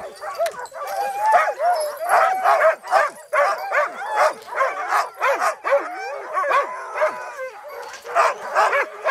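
A yard of chained sled huskies barking and yipping together, many dogs calling over one another in a dense chorus without a pause.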